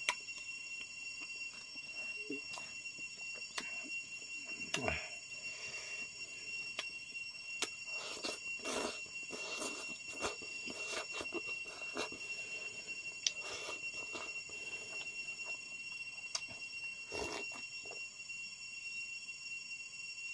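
Close-up eating sounds: slurping and chewing of noodles and rice eaten by hand, with wet smacks and clicks, densest about eight to eleven seconds in. A steady high-pitched ringing tone runs underneath.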